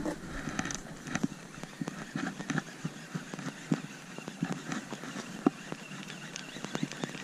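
Irregular light clicks and knocks, several a second, of rod, reel and body handling in a small fishing boat while a fish is being played on a bent rod.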